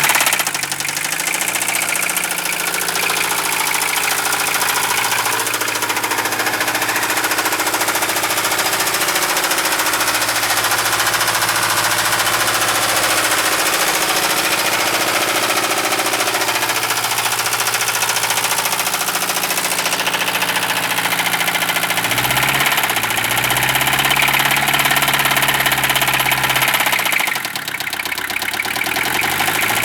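1973 Mercedes-Benz 220D's four-cylinder diesel engine running with a knock that the owner takes for rod knock. The revs dip just after the start, climb about two-thirds of the way through, then fall and rise again near the end.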